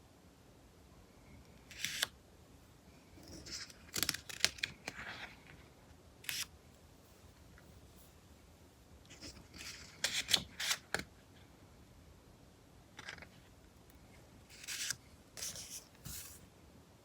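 Magazine pages being turned and handled: a series of short papery swishes and rustles in clusters, about two seconds in, around four to five seconds, around ten seconds, and again near the end.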